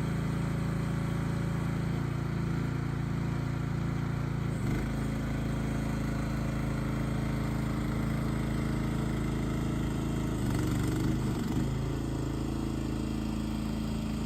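Mini excavator's single-cylinder Briggs & Stratton 420cc gas engine running steadily, its note shifting briefly about five seconds in and wavering again around eleven seconds.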